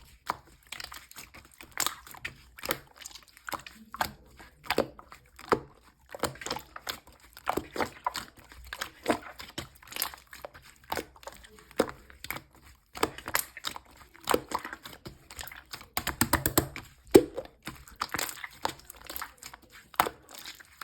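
Slime being squished and worked by hand, giving irregular sticky clicks and pops, with a quick run of pops about sixteen seconds in.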